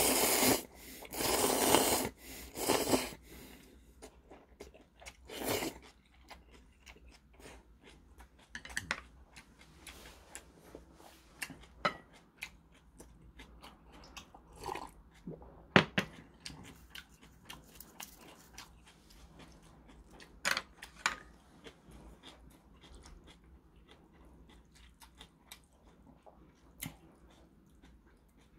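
Ramen noodles slurped loudly in three quick pulls in the first three seconds, then chewing with scattered small smacks and clicks.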